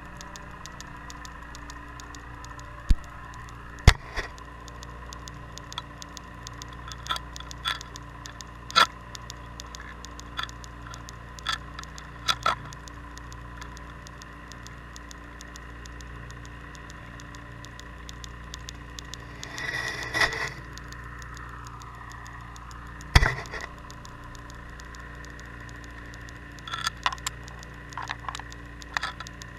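Underwater sound picked up through a GoPro housing on the sea floor: a steady hum with a couple of fixed tones, broken by scattered sharp clicks and pops and a brief rush of noise about two-thirds of the way through.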